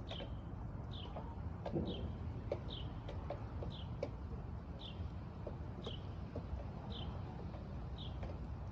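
A bird calling: a short, high chirp sliding downward, repeated about once a second, over a steady low background noise.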